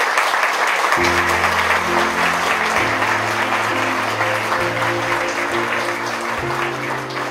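Wedding guests applauding, the clapping thinning slowly toward the end. Soft music with sustained low chords comes in about a second in.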